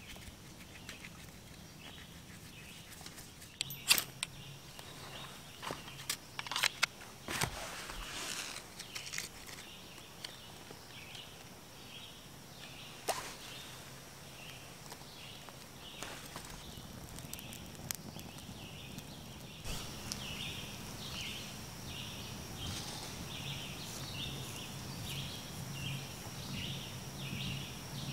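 Outdoor pond-side ambience: short high chirps repeat a few times a second over a faint steady high tone, growing busier in the second half. A few sharp clicks and knocks come in the first half, the loudest about four seconds in.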